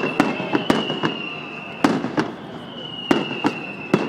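Fireworks show: shells bursting in a rapid, irregular string of sharp bangs, with a high whistle that slides slowly down in pitch during the first second and again near the end.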